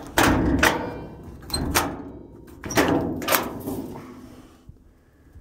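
A steel side toolbox door on a Kaiser Jeep M715-series truck's utility body being opened: a run of metal clanks and knocks, loudest near the start and around three seconds in, then it goes quiet.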